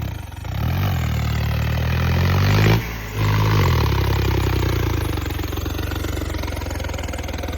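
Tractor engine revving up hard twice, with a brief drop between, then holding at high revs and slowly easing off, labouring to pull through deep mud.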